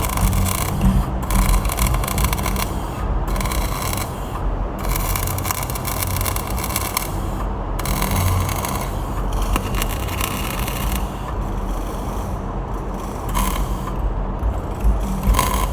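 Electric arc welding: a steady crackling hiss that cuts out briefly several times and starts again, over a low rumble.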